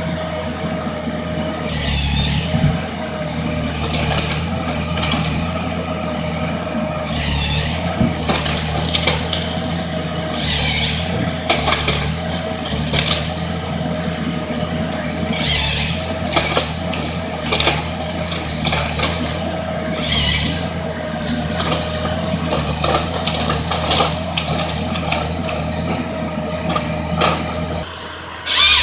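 Timberjack wheeled harvester's diesel engine running steadily with a steady whine, while repeated knocks and cracks come from the crane and harvester head working the timber. Near the end the sound jumps suddenly louder.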